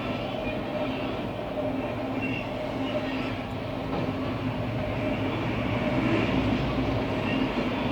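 CSX freight train rolling past, its cars running steadily on the rails with a continuous rumble and a few steady metallic tones from the wheels.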